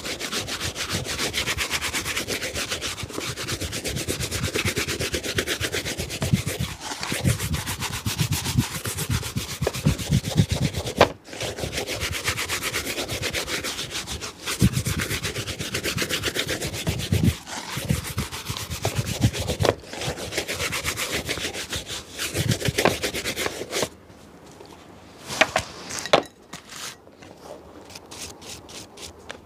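Fast back-and-forth rubbing strokes on a shoe, dense and continuous, with two short breaks. They stop some six seconds before the end, leaving a few light taps and then a quick run of small ticks.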